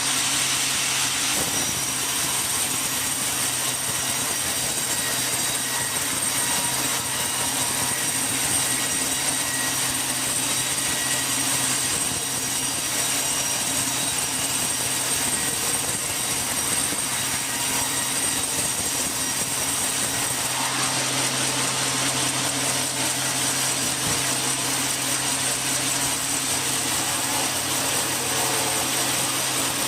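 Sawmill machinery running steadily for the whole stretch: a constant high whine over a low hum, with no distinct cuts, knocks or pauses.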